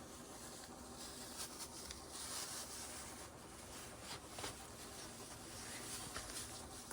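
A cat eating from its bowl: faint, irregular small clicks of chewing and licking over a quiet room hiss.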